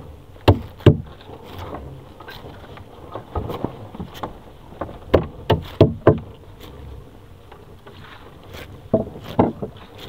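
Gloved hands pulling and untangling a nylon monofilament fishing net close to the microphone: rustling with sharp knocks and scrapes in clusters, two near the start, four around the middle and two near the end.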